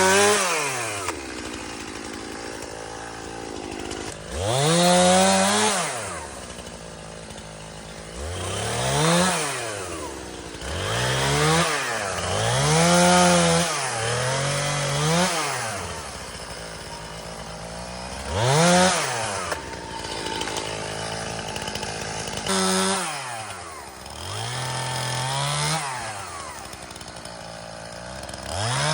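Chainsaw cutting wood in about nine short bursts. Each time the engine pitch climbs under throttle and falls back, and the saw keeps running quietly between cuts.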